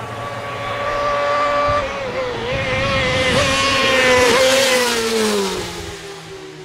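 Two racing motorcycles ride up and pass close by at speed, their engines running hard with a steady high note. The sound is loudest about four seconds in, then the note drops in pitch and fades as they go past.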